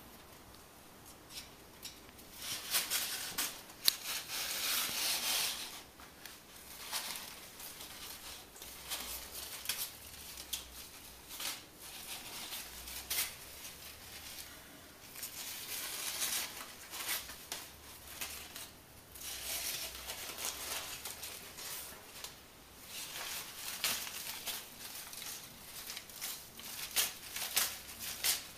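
Crumpled paper crinkling and rustling in irregular bursts as a Holland Lop rabbit noses and pushes it about, the loudest stretch a few seconds in.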